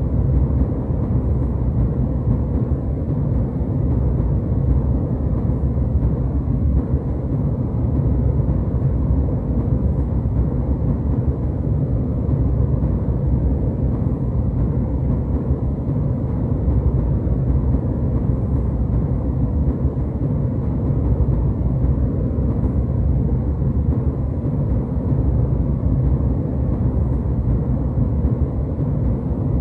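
Steady jet airliner cabin noise in cruise: an even low rumble of engines and airflow that doesn't change.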